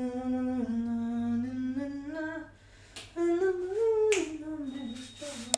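A voice humming a slow, wordless melody in long held notes that slide between pitches, with a finger snap about three seconds in and another near the end.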